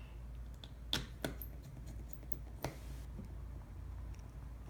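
A few light, sharp clicks and taps of small tools and parts being handled on the opened iPhone 6, over a steady low hum.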